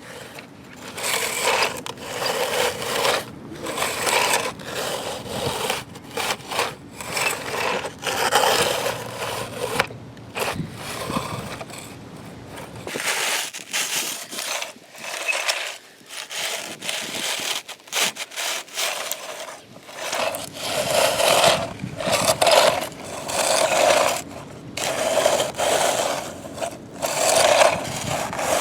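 Repeated scraping strokes of toy digging in dirt, about one a second, growing more regular and stronger in the second half.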